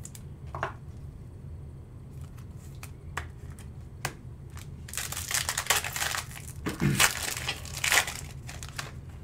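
Foil trading-card pack wrapper crinkling as it is handled and torn open, a dense crackle from about five seconds in that ends shortly after eight seconds, after a few faint clicks.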